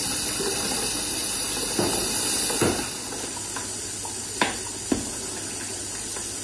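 Chopped onion and garlic sizzling in olive oil and lard in a large aluminium pot as a spoon stirs them. About three seconds in, the sound drops to a quieter sizzle of pork pieces being stirred with a wooden spoon, which knocks twice against the pot.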